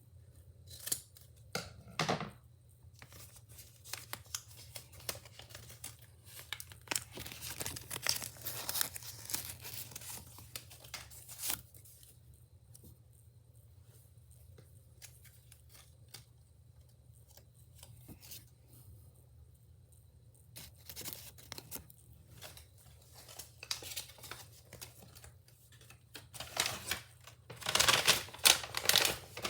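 Packaging being torn open and crinkled by hand in irregular bursts, with a quieter pause in the middle and the loudest tearing near the end.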